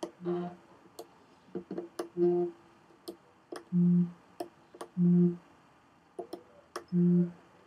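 An iPhone on vibrate buzzing against a guitar, the guitar body sounding the buzz as a low, foghorn-like hum. Five half-second buzzes come a second or two apart, with faint clicks between them.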